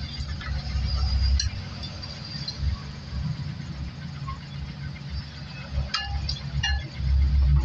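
Wire whisk stirring beaten eggs in a glass bowl, with a few light clinks of the whisk against the glass: one about a second and a half in and a quick cluster near the end. A low steady rumble runs underneath.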